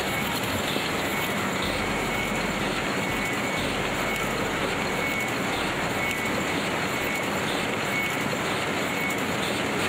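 Soap stamping machine running: steady mechanical factory noise, with a faint high tone recurring about once a second.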